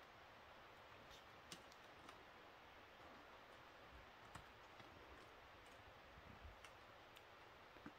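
Near silence, broken by a few faint scattered clicks and a couple of soft low thuds.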